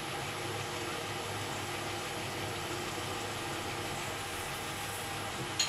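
1972 Weiler Matador SV metal lathe running with a steady hum while a parting tool cuts off the workpiece. A short sharp sound comes right at the end.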